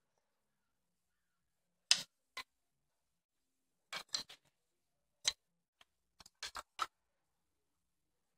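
Wooden toy building pieces clacking as flat roof slats are laid and shifted on a toy log cabin: about a dozen short, sharp clicks and knocks in small clusters, with silence between.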